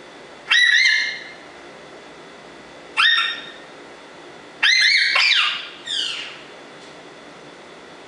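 African grey parrot calling: two short calls that sweep up in pitch and then hold, about half a second and three seconds in, then a longer string of rising-and-falling notes and a falling call near the six-second mark.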